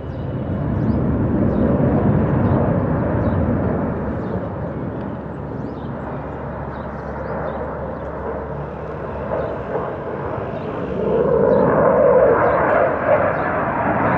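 Single-engine F-16 fighter jet flying past, its jet engine noise rumbling loudly. It swells about a second in, eases off in the middle, and grows louder and harsher again near the end.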